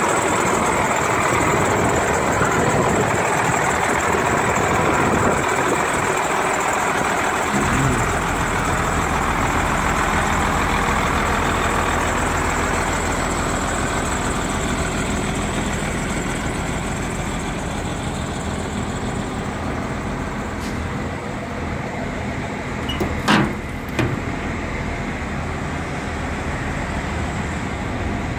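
Idling engine of a Ford CF8000 paint-stripe truck, a steady running noise; a steady low hum comes in about eight seconds in, and a single sharp knock sounds late on.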